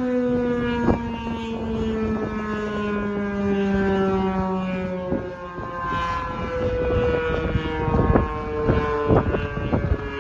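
Federal Signal Model 5 mechanical outdoor warning siren sounding its weekly test, a long wail whose pitch slides slowly downward. Fainter tones from other distant sirens lie underneath, one of them stopping about halfway through.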